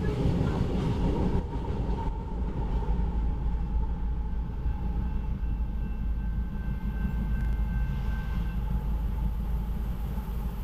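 Loaded grain train's freight cars rolling past with a steady low rumble, a few wheel clacks over rail joints in the first second or so, and faint high ringing tones from the wheels partway through.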